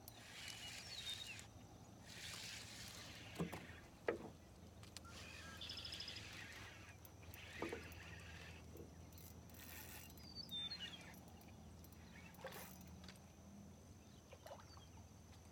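Faint spinning fishing reel being cranked in short spurts of a second or so while a hooked fish is fought, its drag set a bit low. Two or three sharp knocks come in the middle, and a bird chirps briefly later on.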